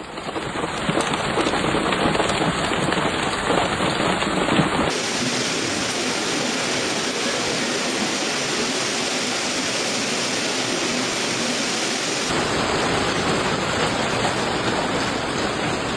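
Heavy storm downpour beating down in a dense, steady hiss, its tone changing abruptly about five seconds in and again near twelve seconds.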